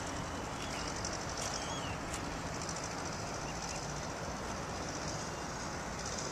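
Distant microlight aircraft engine running steadily as it taxies for take-off, with a few faint bird chirps in the first two seconds.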